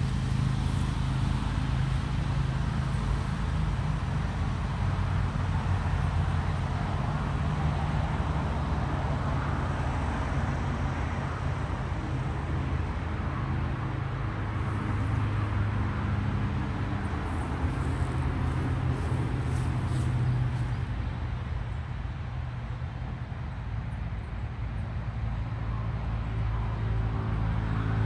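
Steady engine and road noise of a car, a low hum with a broad rush over it.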